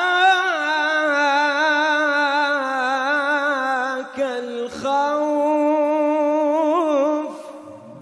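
A single voice singing a devotional Islamic chant (nasheed), holding long, wavering notes. There is a short break about four seconds in, and the voice fades out near the end.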